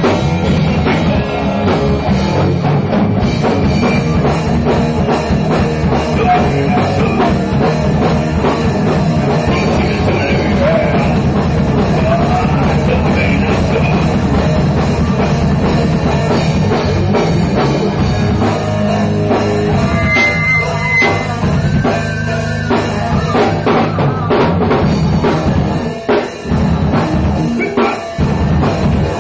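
A rock band playing live, the drum kit and cymbals to the fore, with a couple of short breaks near the end.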